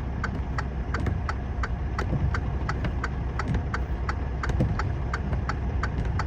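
Idling vehicle engine with a rapid, regular clicking over it, about four clicks a second.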